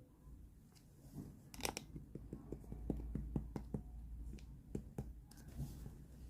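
Clear slime being pressed and pulled by hand, giving a quick run of sticky clicks and small air-bubble pops that begins about a second and a half in and thins out near the end.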